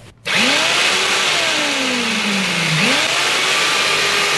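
A three-function rotary hammer drill's brushed motor switches on about a third of a second in and runs steadily at full speed, with a faint tone that rises quickly and then sinks slowly in pitch, twice. The drill is being test-run on freshly filed and reseated carbon brushes.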